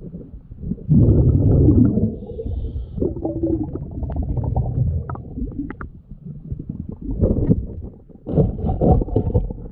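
Underwater sound of a scuba diver's exhaled bubbles from the regulator rumbling in irregular bursts. The loudest burst comes about a second in, and another cluster comes near the end.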